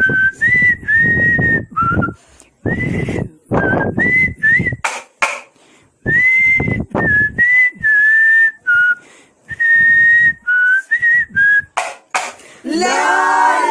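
A person whistling a melody by mouth in short phrases, with breath noise under each note. Near the end, several voices start singing together.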